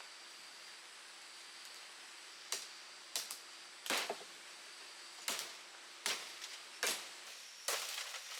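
Repeated sharp chopping strikes, about eight of them, roughly one a second, starting a few seconds in over a faint steady background hiss.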